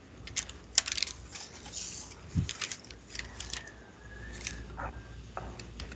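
Scattered light clicks and brief rustles, handling noise over the call's audio, over a faint hiss.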